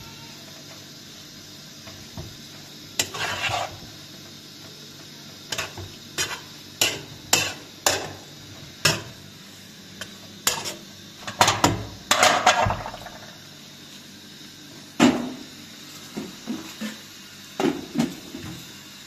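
Irregular sharp knocks and clinks of hard objects being handled, some with a short ringing tail, the busiest run a little past the middle.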